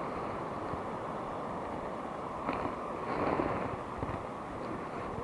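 Steady rush of wind and water on an action camera, with a couple of short knocks and a brief scuffing noise about halfway through as the camera is handled.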